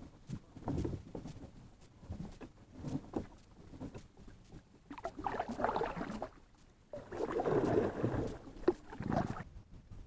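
Kayak paddle strokes: the double-bladed paddle dips and pulls through the water with a splashing swell every two to three seconds, the last two strokes longer and louder, with a few small knocks among them.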